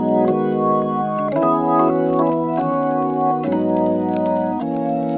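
Background music: sustained organ-like chords that change about once a second.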